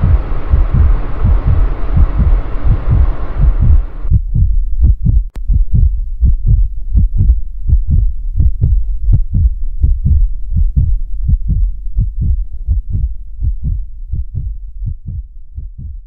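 Heartbeat sound effect, a steady lub-dub of low thumps that fades toward the end. For the first four seconds a rushing noise runs over it and cuts off suddenly; a sharp click comes about a second later.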